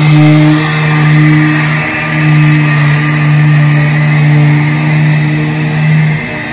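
Electric power sander with 80-grit paper running steadily on the boat's wooden deck, its hum dipping briefly twice as the pressure or position changes.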